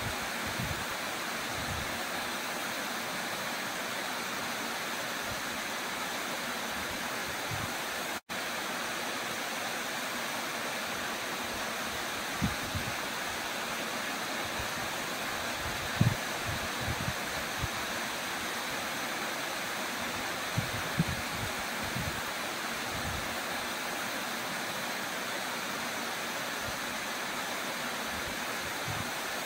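Small waterfall pouring into a rock plunge pool: a steady, even rush of falling water. A few brief low thumps come and go, and the sound cuts out for an instant about eight seconds in.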